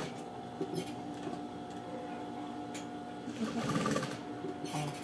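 Electric sewing machine running steadily, stitching strips of knit fabric, with a brief rustle about three and a half seconds in.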